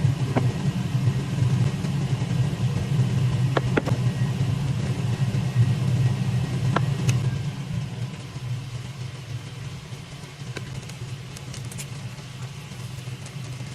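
A steady low hum with a few light clicks and taps over it. The hum is louder for about the first seven seconds, then drops in level.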